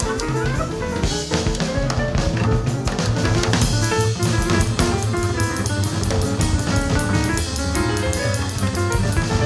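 Free jazz quartet recording: a busy drum kit plays under fast runs of short melodic notes, over a steady low bass.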